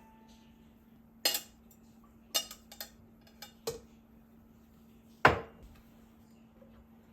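Kitchen containers and dishes being handled and set down: a sharp clink, a cluster of lighter clicks and knocks, then one heavier knock about five seconds in.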